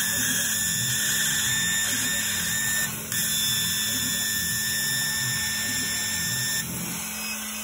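High-pitched squeal from a 100 W Yongli CO2 laser tube and cutting head as it cuts plywood, sounding in two stretches with a short break about three seconds in and stopping near the end, over a steady low hum. The squeal comes with the tube firing at high power and was traced to the distilled water in the cooling loop.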